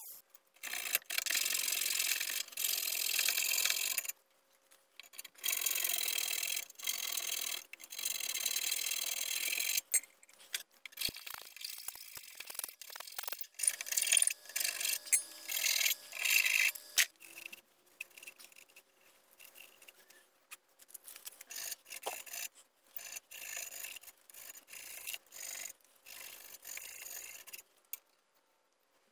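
A small hand file rasping back and forth on the cut edge of a hole in a thin aluminium intake pipe, shaping the opening for a MAF sensor boss. The filing comes in long runs of strokes over the first ten seconds or so, then in shorter, patchier strokes, and turns to faint scrapes near the end.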